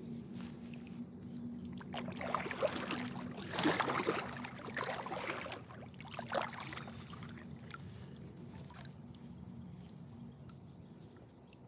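Kayak paddle strokes splashing in the water, loudest a few seconds in, then easing off to light drips and small knocks.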